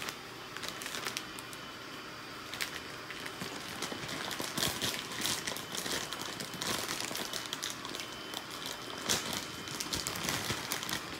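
A plastic bag of shredded cheese crinkling and rustling in irregular bursts as a hand reaches in for cheese.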